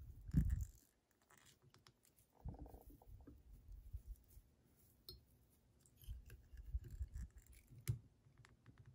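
Faint handling sounds of fingers working thread and materials on a fly in a tying vise: scattered small clicks and soft bumps, busier about two and a half seconds in and again near the end.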